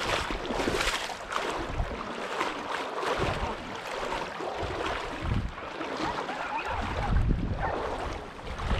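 Gusty wind buffeting the microphone, with small waves lapping on the stony lake shore; the wind rumble swells about five seconds in and again near the end.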